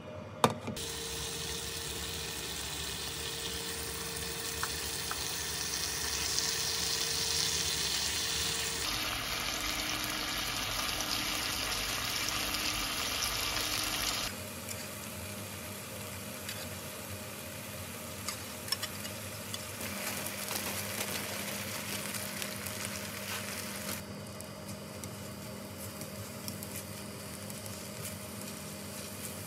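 Kimchi frying in sesame oil in a frying pan, a steady sizzle, and later fried rice sizzling as it is stirred. The sizzle changes abruptly a few times as the takes change, with a sharp click about half a second in.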